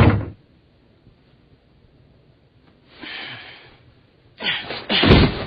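A thud at the very start, then quiet, then a man's breathing: a soft breath about three seconds in and a loud, heavy exhale like a sigh near the end.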